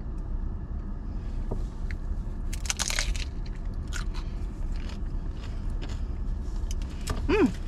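Crunching bites into a thick, crispy fried corn shell (a Del Taco Crunchtada), with crackles and chewing, heaviest a few seconds in, over a low steady hum inside a car. A short voiced 'mm' comes near the end.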